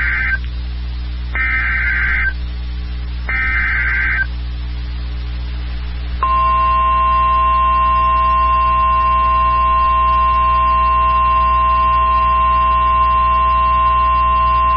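Emergency Alert System weather-radio alert. It opens with three short bursts of screeching digital SAME header data, about a second each: the tail of the first, then two more. After about two seconds without bursts, the steady single-pitch warning alarm tone starts about six seconds in and holds, announcing a tornado warning. A low electrical hum runs underneath.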